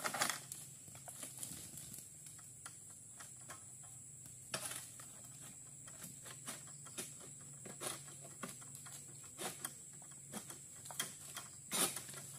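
Irregular sharp clicks and knocks of an egrek, a long pole-mounted harvesting sickle, working at an oil palm crown as it cuts at frond stalks and the fruit bunch, over a steady faint high-pitched whine.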